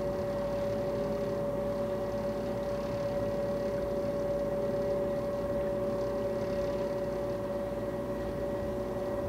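Wire ferry under way: its drive machinery runs steadily with a constant droning hum and a steady whine, over an even rush of noise.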